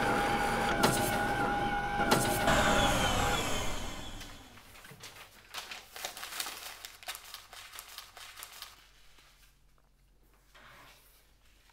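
Office photocopier running with a steady whine and a sharp click about every second and a half, then winding down with a falling whine about three to four seconds in. Faint rustles and taps of paper being handled follow, then it goes quiet.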